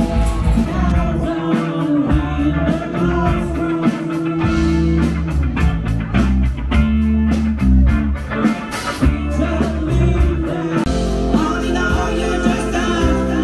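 Rock band playing a song: distorted electric guitars over bass guitar and a drum kit, with a steady beat.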